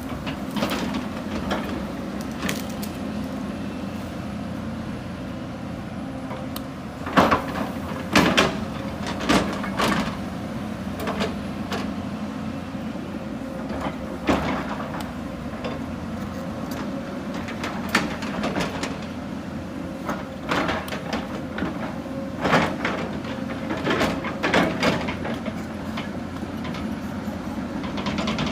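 Hyundai 220 hydraulic excavator's diesel engine running steadily under load, with irregular clanks and scrapes of the bucket digging into earth and rock, which come in clusters several times.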